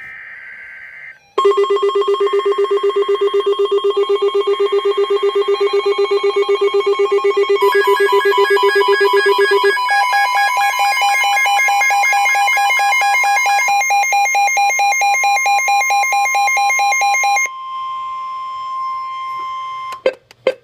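Emergency Alert System alert tones: a short burst of high warbling data tones, then a loud, rapidly pulsing multi-pitched alarm tone that shifts pitch twice and cuts off about 17 seconds in. Quieter steady tones follow for the last few seconds.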